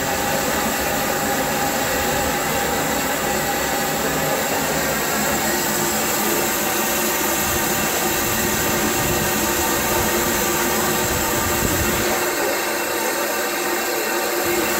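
Small steam tank locomotive standing at a platform with a loud, steady hiss of escaping steam.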